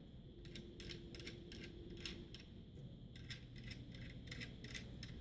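Small metal nuts and bolts clicking and clinking as they are handled, several light irregular clicks a second.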